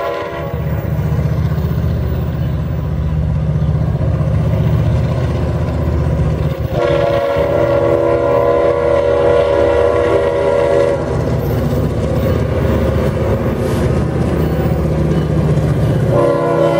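CSX diesel locomotive creeping along at the head of an empty coal train, its engine rumbling steadily. The air horn blows in several blasts: one ending about half a second in, a long one from about seven to eleven seconds, and another starting near the end.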